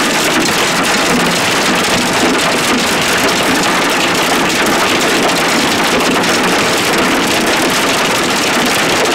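Dime-sized hail mixed with rain pelting the car's roof and windows, heard from inside the car: a dense, steady clatter of countless small hits.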